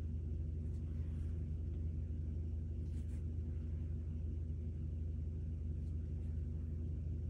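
Steady low electrical hum, with a few faint, brief scratches of a mechanical pencil drawing short lines on paper.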